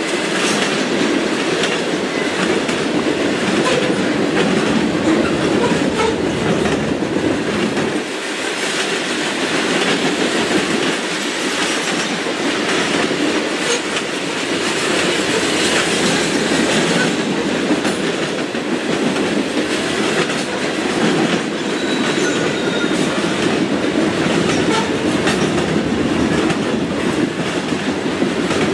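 Train cars rolling past close by with a steady clickety-clack of wheels over rail joints, and a few brief faint wheel squeals.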